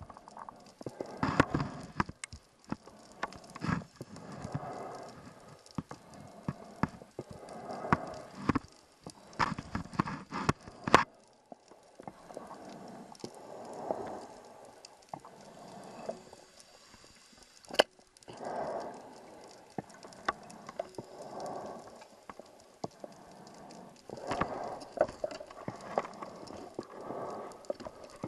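Scuba diver breathing through a regulator underwater: a burst of burbling exhaled bubbles every few seconds, with scattered sharp clicks and knocks in between.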